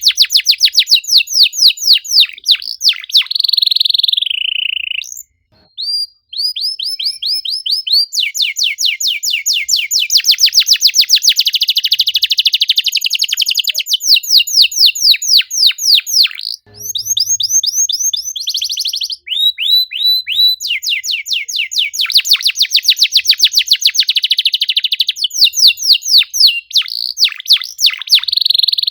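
Domestic canary singing long, fast trills of rapid falling chirps, packed tightly together, with a couple of short pauses between phrases.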